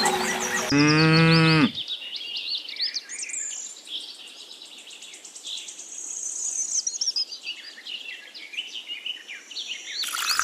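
A cow moos once, about a second long, near the start, followed by many birds chirping and twittering.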